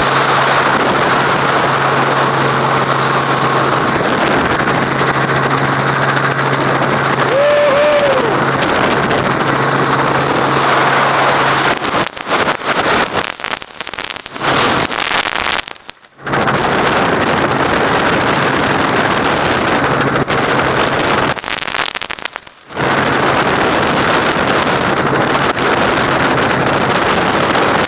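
Helicopter in flight heard from on board: a loud steady rotor and engine roar with a low steady hum. The roar breaks up and drops out briefly about twelve seconds in and again a little after twenty seconds.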